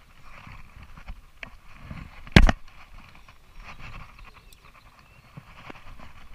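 Handling noise in a fishing boat: rustling and light knocks, with one loud thump about two and a half seconds in.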